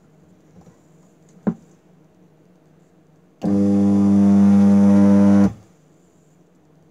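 Homemade spot welder built from a microwave-oven transformer humming loudly while it welds steel wire, a steady mains buzz that starts and cuts off abruptly after about two seconds. A single sharp click comes about a second and a half in.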